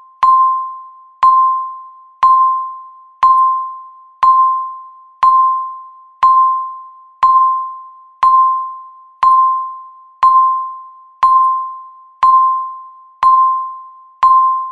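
Countdown-timer beep repeating once a second: a single mid-pitched electronic tone that starts sharply and fades away before the next.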